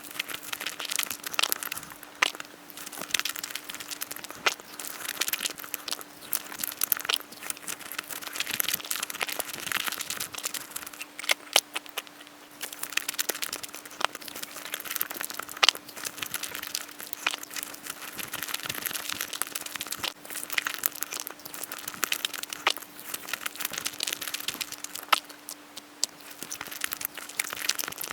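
Close-miked eating sounds from Nutella crepes being chewed: a dense, uneven crackle of wet mouth noises with many sharp clicks, over a steady low hum.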